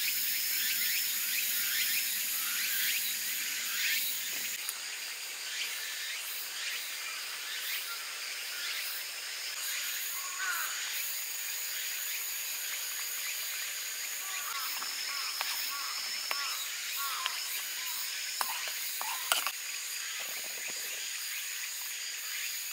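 Forest ambience dominated by insects trilling steadily in a high pitch, with a run of short chirping calls midway and a few small sharp knocks near the end.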